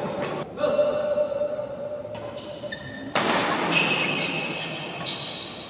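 Badminton rally: several sharp racket hits on the shuttlecock, the loudest a little after three seconds in, with shoes squeaking on the court floor, echoing in a large sports hall.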